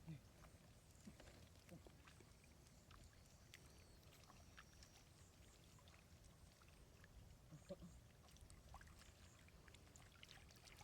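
Near silence: a faint low rumble with scattered faint clicks.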